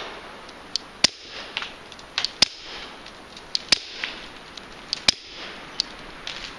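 Suppressed 9mm Glock 17 pistol firing four shots through a Silencer Co Osprey suppressor, each a short sharp crack, evenly spaced about a second and a half apart, with fainter clicks between them. The suppressor keeps the shots easy on the ears.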